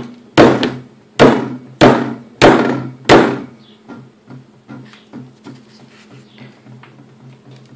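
A hand striking a tub of cornstarch-and-water oobleck, five hard smacks about two-thirds of a second apart as the non-Newtonian mix firms up under each blow. Fainter ticks and taps follow for the rest.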